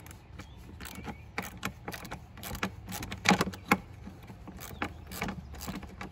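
Irregular clicks and light knocks from a hand tool working an 8 mm bolt loose on a car's air intake, over a faint low hum.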